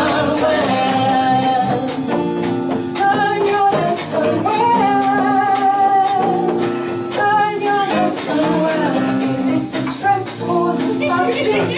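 Live folk band playing: women's voices singing long held notes over strummed acoustic guitar, with drums and other percussion keeping the beat.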